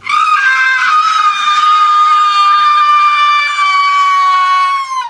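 A person's loud, high-pitched scream, held on one nearly steady pitch for about five seconds, sagging slightly just before it cuts off.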